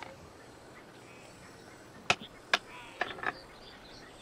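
Game pieces knocked down on a board: four short, sharp clacks within about a second and a half, over faint outdoor hiss.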